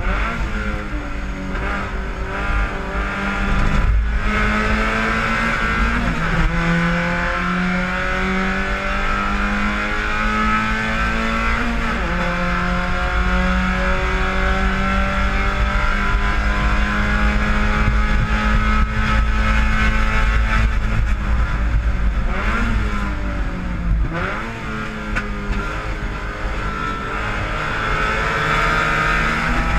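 Spec Miata race car's four-cylinder engine, heard from inside the cabin and running hard under racing load. Its pitch climbs through each gear and drops sharply at each shift, several times. Through the middle it holds high and nearly steady, then falls away under braking and downshifts near the end before climbing again.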